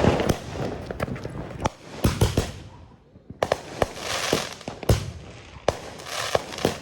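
Consumer fireworks going off: about ten sharp bangs, unevenly spaced, with hissing, crackling noise between them.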